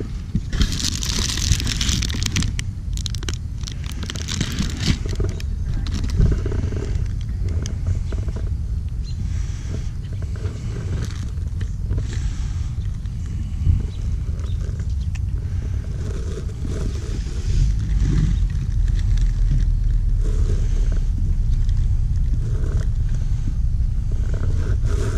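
Car driving, heard from inside the cabin: a steady low road and engine rumble, with a brief hiss about a second in.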